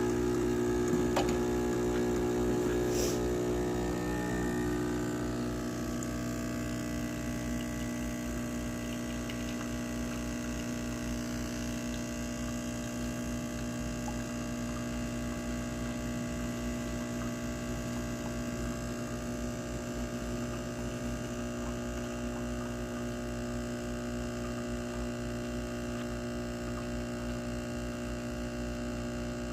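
Gourmia espresso machine's pump humming steadily while brewing a double shot of espresso, a little louder for the first few seconds before settling to an even drone.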